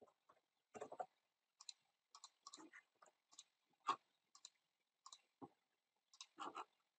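Faint, irregular clicking of a computer mouse and keyboard keys, about a dozen short clicks, the loudest about four seconds in.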